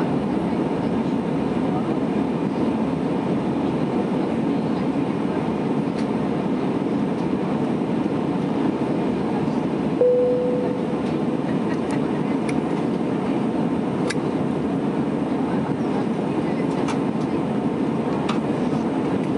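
Steady engine and airflow noise inside the cabin of an Airbus A320 in flight. About halfway through, a single short chime sounds once and fades quickly.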